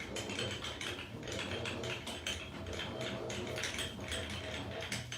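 Milling machine spindle running with a chamfer cutter biting into the edge of a drilled hole in steel plate: a steady motor hum under fast, rough scraping chatter. It stops near the end.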